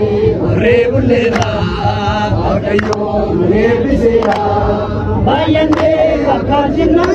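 A crowd of Oromo men chanting and singing together in a traditional Irreecha festival song, many voices at once, with sharp handclaps about every second and a half.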